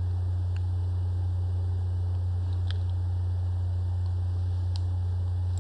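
Steady low electrical hum under a faint hiss, with a few faint clicks spaced out across it.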